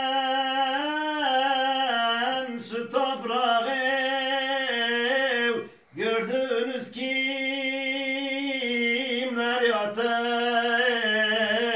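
A man singing a Turkish Sufi hymn (ilahi) unaccompanied. He draws out long, wavering held notes and pauses briefly for breath about six seconds in.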